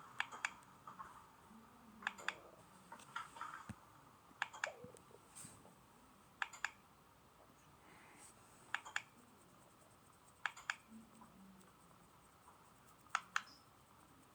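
Small sharp clicks, mostly in quick pairs, repeating every one to two seconds over a quiet room background.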